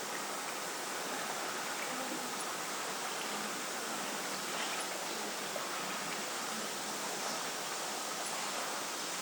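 Wind blowing steadily on a windy night, an even hiss with no distinct events.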